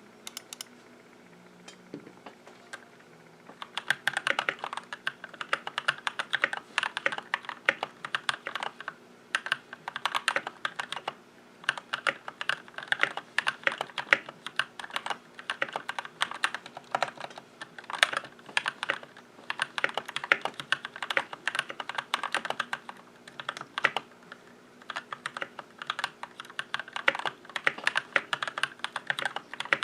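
Keychron C2 mechanical keyboard being typed on fast: a dense run of key clicks starting about four seconds in and going on in bursts with short pauses.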